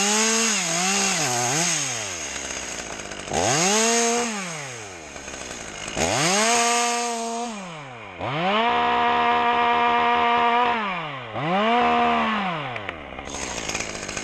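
Two-stroke chainsaw revved from idle to full throttle and back five times, held at full revs for about two seconds near the middle.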